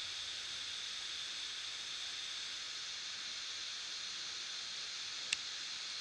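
Steady hiss of recording noise, with one sharp click about five seconds in.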